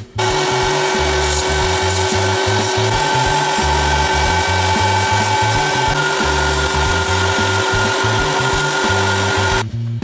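A small power tool running at constant speed with a steady pitched whine. It starts just after the beginning and cuts off shortly before the end, over background music.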